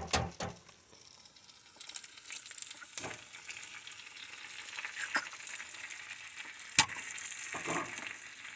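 Food sizzling in a hot frying pan, a steady hiss that picks up about a second and a half in, with a few sharp clicks and taps of utensils over it.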